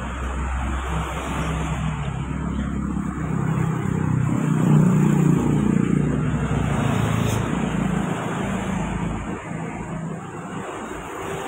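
A motor vehicle passing by, its engine sound swelling to its loudest about five seconds in and then fading away.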